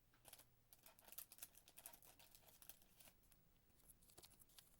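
Faint crinkling and light clicks of trading cards being handled, with scattered small sharp ticks that are thickest in the first second and a half.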